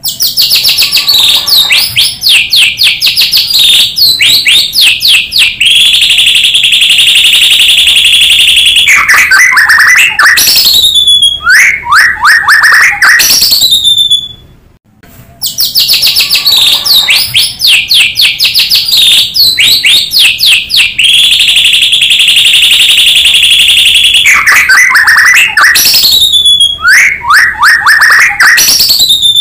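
White-rumped shama (murai batu) song, a recording played on a loop as a lure for other shamas. It is a fast run of varied whistles and chatter, a long steady trill, then falling slurred whistles, and the same sequence plays through twice with a brief pause about halfway.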